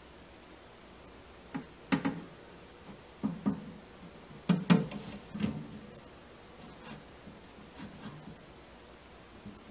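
A few light clicks and knocks over quiet room tone: a pair about two seconds in, more around three to five and a half seconds in, and faint ones after.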